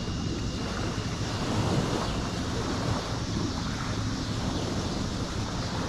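Steady wind noise on the microphone.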